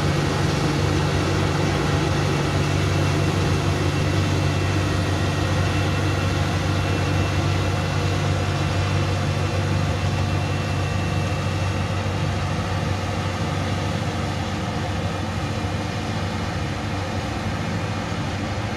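Combine harvester's diesel engine and threshing machinery running steadily during the wheat harvest, a continuous low drone that eases slightly toward the end.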